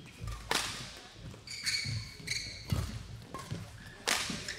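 Badminton rally: sharp cracks of rackets striking the shuttlecock, one every second or so, with squeaks of court shoes on the hall floor and the thud of footfalls.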